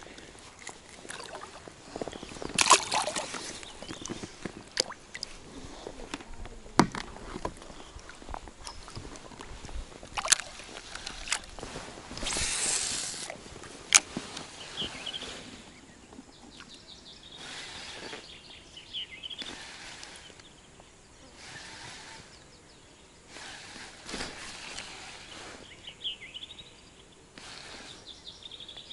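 Water sloshing and splashing beside an inflatable raft, with a few sharp clicks from handling the fish and tackle, and a longer splash about twelve seconds in as a small pike goes back into the river. In the second half, birds chirp in the background.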